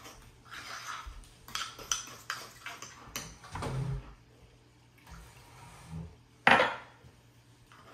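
Metal spoon clinking and scraping in a bowl as thick peanut sauce is stirred, with hot water poured in from a glass measuring cup around the middle to thin it. One louder clink near the end.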